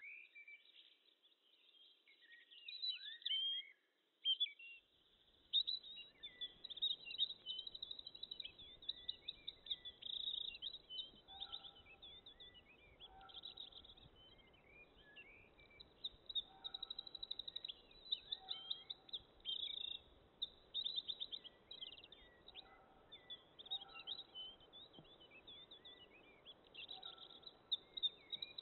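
Many small birds chirping and trilling in quick, overlapping calls, with a lower two-note call repeating every few seconds. A faint hiss comes in about five seconds in.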